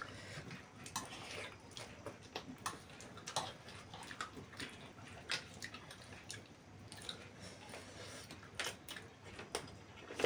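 Faint eating sounds: forks clicking and scraping on plates, with chewing and slurping of noodles. The sound is a string of irregular small clicks and short smacks.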